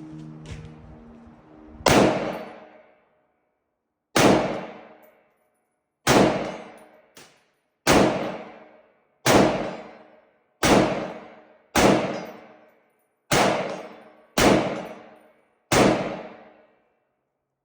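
Ruger SFAR semi-automatic rifle in .308 firing ten single shots at an uneven pace, one every one to two seconds. Each shot is followed by a ringing tail about a second long.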